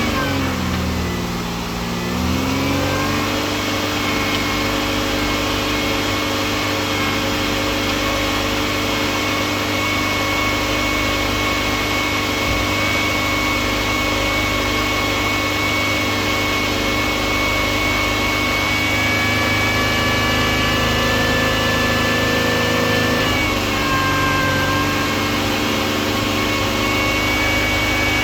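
2004 Buick 3.8-litre V6 engine just after starting: the revs dip and waver for the first couple of seconds, then settle into a steady idle, with a small drop in engine speed about two-thirds of the way through.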